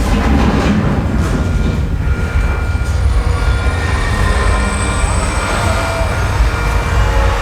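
Earthquake special effects running: a loud, steady deep rumble with faint high metallic squeals over it, like a train.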